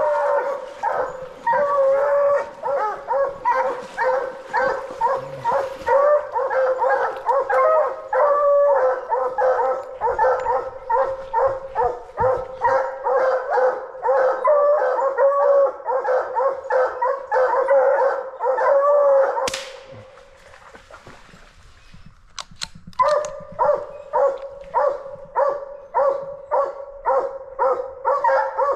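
Coonhounds barking treed: a rapid, steady chop of barks, about two or three a second, at a tree where they hold a raccoon. The barking breaks off for about three seconds two-thirds of the way through, then starts again.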